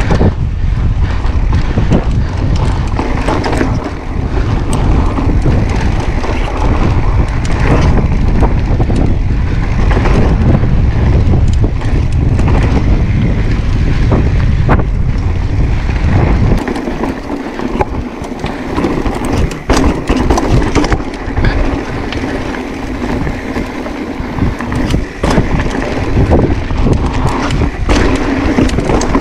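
Wind buffeting the microphone of a camera on a moving mountain bike, over tyres rolling on rock and dirt and the bike rattling and knocking over bumps. The heavy wind rumble drops away a little over halfway through, leaving the tyre noise and rattles.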